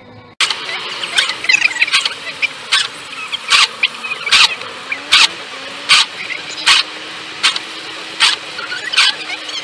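Cheap 2-euro Kaufland windscreen wiper blades squeaking across the wet glass, one sharp squeak about every three-quarters of a second with each sweep. The sound starts abruptly about half a second in.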